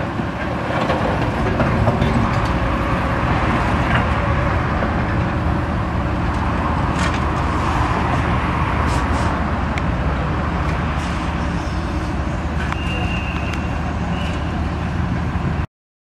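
Backhoe (hydraulic excavator) engine running steadily while digging, with a few light clinks. It cuts off abruptly just before the end.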